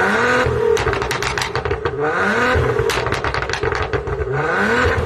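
Stage 1 tuned Maserati Ghibli S's twin-turbo V6 revved in three short blips, each followed by a run of exhaust crackles and pops as the revs fall back.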